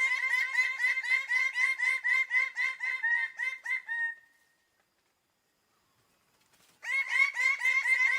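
Bird-of-paradise calling in a fast run of loud repeated notes, about five a second, each dipping slightly in pitch. The run stops about four seconds in and a new run starts after a pause near the end.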